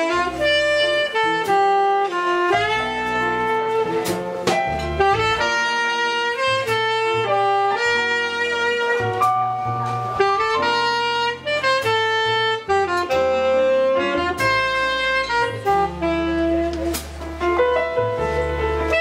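Tenor saxophone playing a jazz melody line, note after note without pause, backed by upright bass and drums with cymbal strokes.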